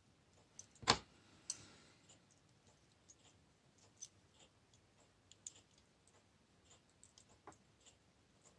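Faint, scattered clicks of small metal watchmaker's tools against a pocket-watch movement as the tight-fitting balance bridge is worked loose, the sharpest click about a second in.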